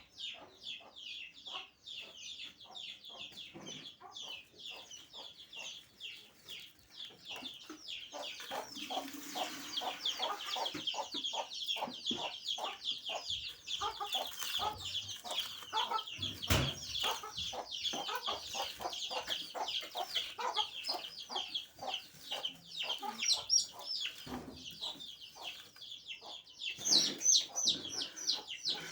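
A flock of chickens calling continuously: many short, high peeps and clucks overlapping without a break. There is one sharp knock about halfway through.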